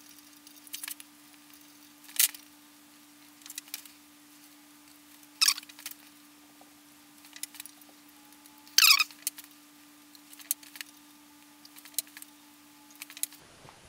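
Scattered metallic clicks and clinks of a socket wrench and small steel parts as the oil squirters are unbolted from a bare BMW M54 engine block. There are about eight sharp clicks, the loudest two with a short ringing tail about five and nine seconds in, over a faint steady hum.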